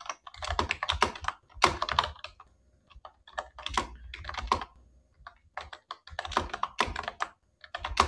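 Typing on a computer keyboard: runs of keystrokes with brief pauses between them.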